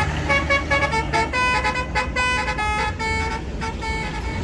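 Multi-tone 'telolet' bus horn playing a quick tune of short notes, each jumping to a new pitch, over a low engine rumble.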